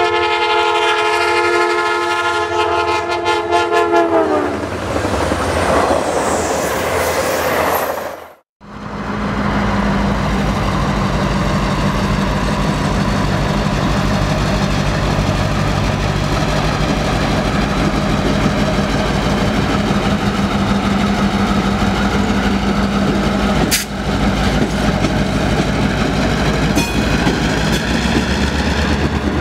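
A train's multi-chime air horn sounds a held chord for about four seconds, dropping in pitch as it ends, followed by the rumble of the train. After a sudden break, an EMD GP38 locomotive's V16 two-stroke diesel runs with a steady low drone while its wheels click over rail joints.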